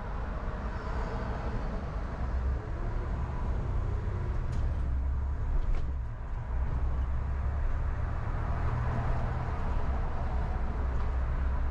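Car driving on a city street: a steady low rumble of engine and road noise with tyre hiss.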